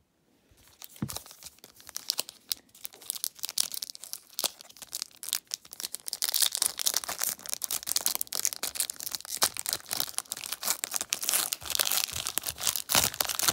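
Foil trading-card pack being torn open and crinkled by hand: dense crackling that starts faint and grows louder and busier about halfway through.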